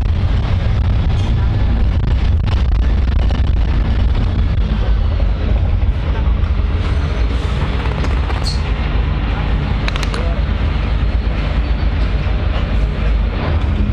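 Ride noise inside a moving public transport vehicle: a steady low rumble with background passenger voices, and a few sharp clicks or rattles around the middle.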